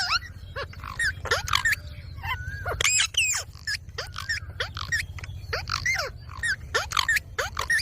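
Ringneck parakeet giving a run of short squawking calls, roughly one or two a second, several sliding down in pitch.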